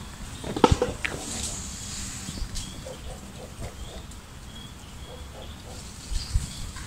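Macaque making soft, short grunts close by while it noses at a handheld phone, with a sharp knock about half a second in and a couple of thumps near the end.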